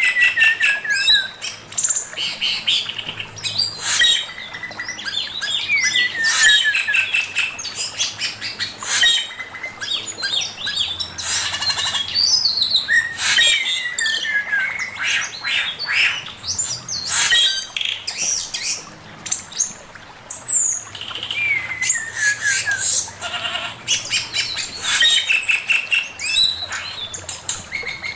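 A male poksay mandarin (Chinese hwamei) singing a long, varied song of loud whistled phrases, with repeated falling slurred notes and quick chattering runs.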